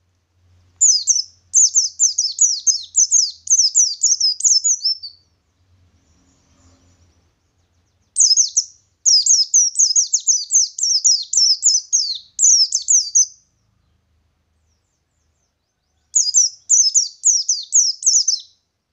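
A wild-type white-eye (pleci ngalas) singing its rolling song: three long bouts of quick, high, downward-slurred notes, several a second, with pauses of a few seconds between bouts.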